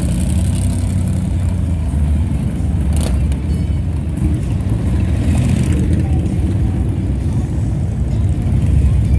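A slow procession of big motorcycles, a Boss Hoss V8 cruiser and touring bikes, passing close by one after another, their engines rumbling at low revs. There is a short sharp click about three seconds in.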